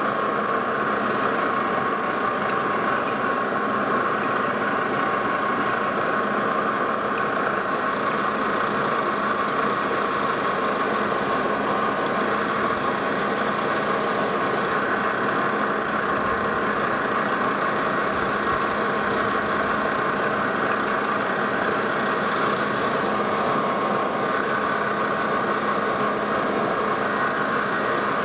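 Metal lathe running while a half-inch twist drill in the tailstock cuts into a spinning metal disc blank. It is a steady machine hum with a constant whine, unchanging throughout.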